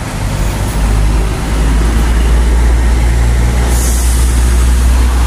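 Diesel engine of a Harapan Jaya intercity coach bus pulling past close by at low speed, its low drone growing louder from about a second in. About four seconds in there is a short hiss of air.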